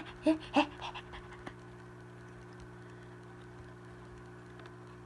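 A couple of short vocal sounds, then a low, steady electrical hum with a faint click about a second and a half in.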